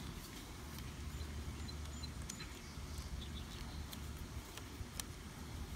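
Small screwdriver working a screw into an aluminium Raspberry Pi case, giving faint scattered ticks and one sharper click about five seconds in, over a low steady rumble. The screw is not lining up well with its hole.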